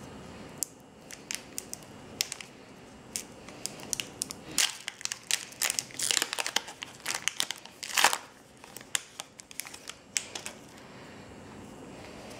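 Foil wrapper of a Pokémon booster pack being torn and crinkled open by hand. It starts as scattered crackles, builds to a dense flurry of crinkling about halfway through, peaks near eight seconds, then thins out to a few last crackles.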